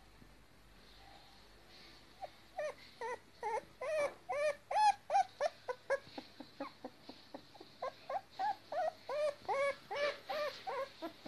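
Young puppy whimpering: a long run of short, high cries, each rising and falling in pitch, about three a second. It starts about two seconds in and is loudest around the middle.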